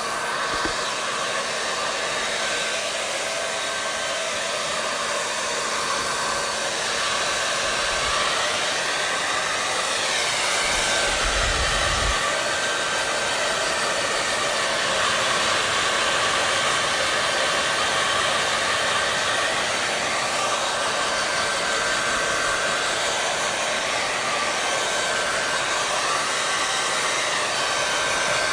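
Hair dryer running steadily: a constant rushing blow of air with a faint steady whine, its rush slowly swirling in pitch.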